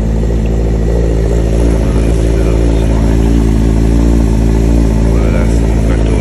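2003 Suzuki GSX-R750's inline-four engine idling steadily through an aftermarket M4 exhaust, just after an oil change.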